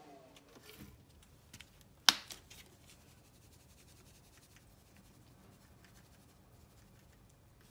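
A single sharp click about two seconds in, then faint, light ticks of salt and pepper being shaken from a shaker onto raw beef slices on a cutting board.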